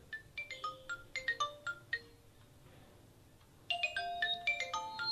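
Mobile phone ringtone for an incoming call: a quick run of marimba-like notes, a pause about two seconds in, then the melody starts again.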